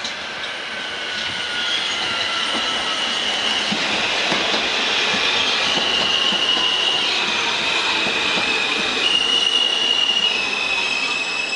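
R160-series New York subway train pulling into a station: steel wheels squealing on the rails in several high steady tones that shift pitch, over the rumble of the passing cars, with a fainter whine slowly falling in pitch as the train slows. The sound grows louder as the cars pass.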